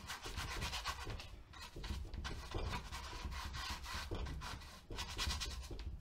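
Big paintbrush scrubbing thin, watery dark paint onto a stretched canvas in rapid repeated strokes, working the paint into the tooth of the canvas.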